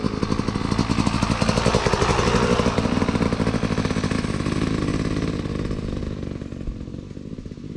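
Motocross dirt bike engine running hard as the bike rides past with a rapid firing pulse, fading as it moves away over the last few seconds.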